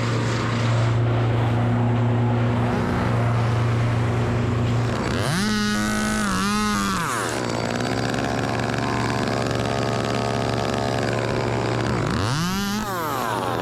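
A chainsaw revving up to full speed and holding for about two seconds of cutting about five seconds in, then revving up again near the end, over a steady low engine hum.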